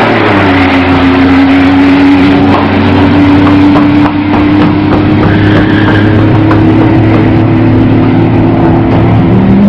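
Buick Regal T-Type's turbocharged V6 at full throttle down a drag strip, a loud steady drone. Its pitch drops right at the start, then climbs slowly as the car pulls away.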